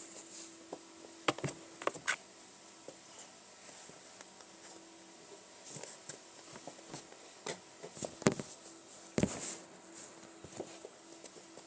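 Kittens scuffling on carpet right at a low camera: scattered knocks and taps as paws and bodies bump the camera and the floor, with soft rustling, the loudest bumps about eight and nine seconds in.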